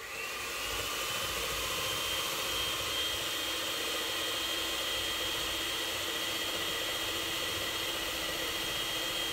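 Electric hand mixer whipping cream stiff in a stainless steel bowl: the motor comes up to speed in the first second, then runs steadily with a thin high whine over an even whirr.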